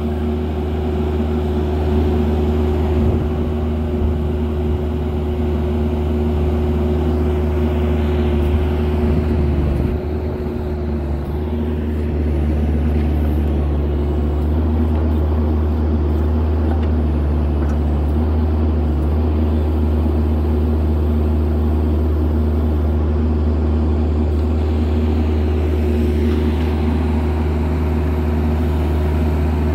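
Kubota mini excavator's diesel engine running steadily with a constant hum while it digs, its level dipping briefly about ten seconds in before settling again.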